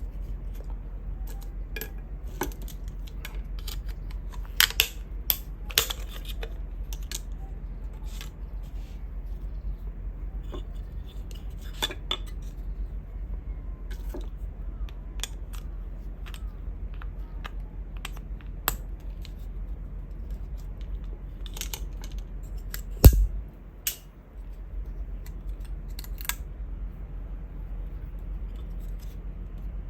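Scattered small clicks, clinks and snips of hand tools and small parts being handled while an old Sony pocket radio is taken apart, over a steady low hum. A cluster of sharper clicks comes a few seconds in, and there is one louder knock with a dull thud about 23 s in.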